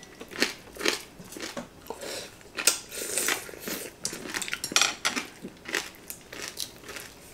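Chopsticks and a fork clicking against ceramic plates in short, irregular taps, with the crunch of crispy Vietnamese roast pork (heo quay) being bitten and chewed.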